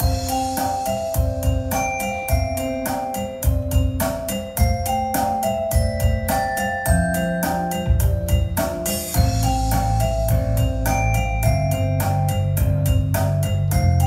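Electronic music: quick, bright mallet-like notes over a steady held tone, with a deep bass layer coming in about nine seconds in.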